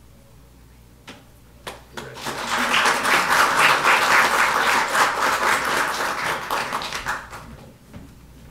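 Audience applauding: a couple of single claps about a second in, then steady clapping for about five seconds that dies away.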